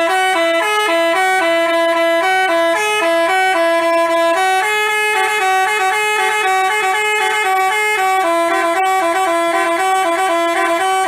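Basuri multi-tone 'telolet' bus horn playing a jingle of quick stepping notes, two pitches sounding together.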